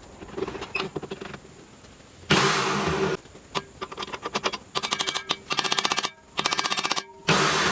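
Electric drill motor running in short bursts, with stretches of fast, even clicking between them.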